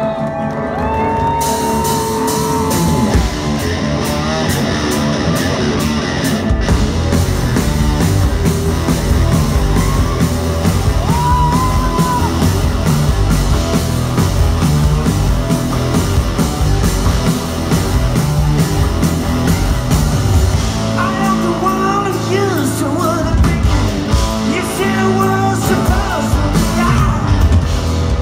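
Live rock band playing in a concert hall, heard from within the audience: drums, electric guitars and keyboards, with a sung vocal line coming in at times.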